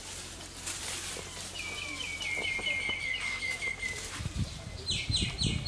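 A bird calling: a rapid trill of about a dozen short notes, slightly falling in pitch, then near the end three louder, quick calls that each slide downward. Low muffled thumps sound underneath during the last part.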